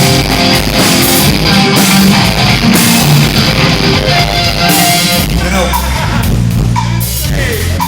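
Rock band playing loud, with electric guitar and drum kit. About five seconds in the drums and upper sound drop away, leaving a held low chord.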